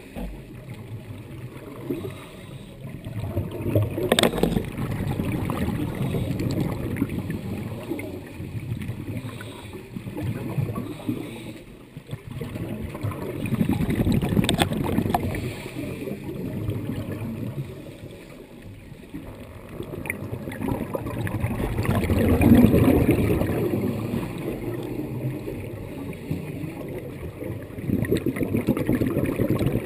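Scuba diver breathing through a regulator underwater, heard through a camera's waterproof housing: exhaled bubbles gurgle and rumble in swells every few seconds.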